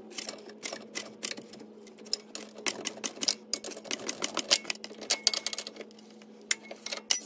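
Socket ratchet clicking in quick, uneven runs as an 18 mm nut is worked off the rear shock absorber's lower mounting bolt.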